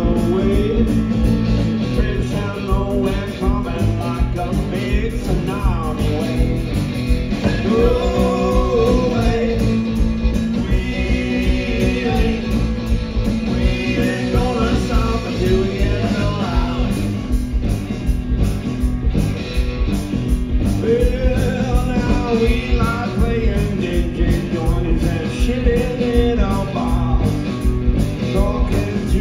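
A live blues-rock band playing: electric guitars over a drum kit with a steady driving beat, and a lead line that glides in pitch.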